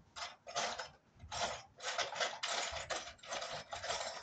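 A quick series of short rasping strokes, about two a second, from hand work at the bottom of a window frame while a new window is fitted.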